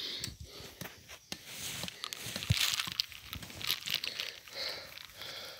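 Footsteps crunching and rustling through dry fallen leaves, with irregular crackles.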